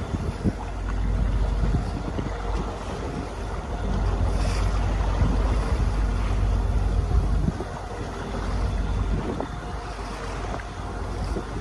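Wind buffeting the microphone in uneven gusts, over the steady running noise of a small boat moving on the water.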